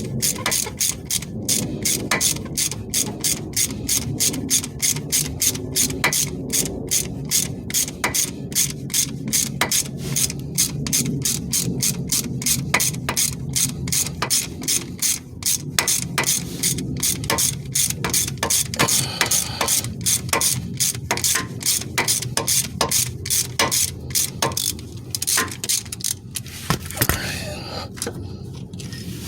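Hand ratchet wrench clicking in a steady rhythm, about three to four clicks a second, as it backs out the 10 mm bolts holding the A/C compressor; the clicking stops near the end.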